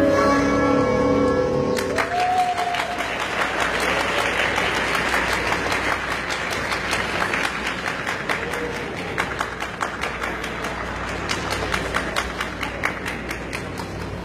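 Recorded skating program music ends about two seconds in, then an audience claps, with a short cheer just after the music stops; the clapping gradually thins out.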